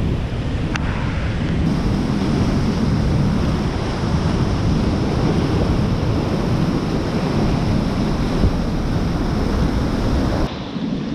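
Steady rushing roar of a flooded whitewater river, heavy with low wind rumble on the microphone. The sound shifts slightly about two seconds in and dips a little near the end.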